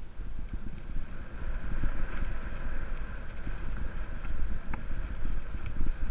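Wind buffeting the camera microphone over the rumble and rattle of a Jamis Dakar XCT Pro full-suspension 650b mountain bike rolling fast on dirt singletrack, with many small knocks from the tyres and frame over the rough trail.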